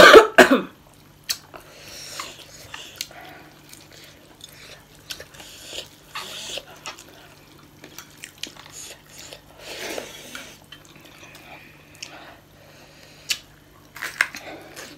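Mouth sounds of eating spicy ramen noodles and rice: chewing and smacking with short slurps, and a metal fork clicking on a plate now and then. A brief loud noise comes right at the start, and the clicking picks up near the end.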